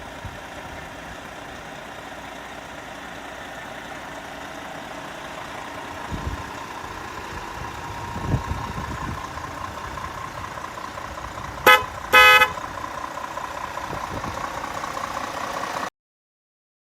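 RC truck running with a steady motor whine, two low thumps midway, then a horn sounding twice, a short toot followed by a longer blast; the sound cuts off suddenly near the end.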